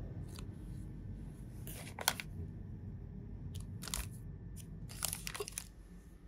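Plastic amenity packets crinkling and rustling as they are picked up and handled, in several short bursts, the loudest about two seconds in.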